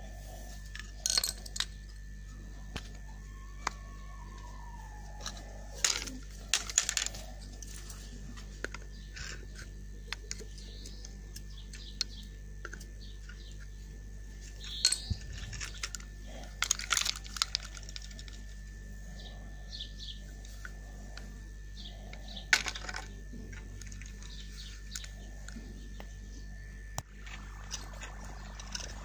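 Sharp metal clicks and clinks of a hand tool and small parts against an old Soviet spinning reel being worked on by hand, coming in short clusters every few seconds.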